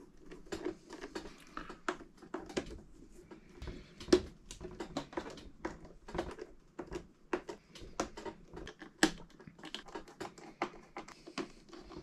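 Irregular light clicks and taps as hands work around the metal edge of an iMac's front bezel and chassis. A sharper tap comes about four seconds in and another about nine seconds in.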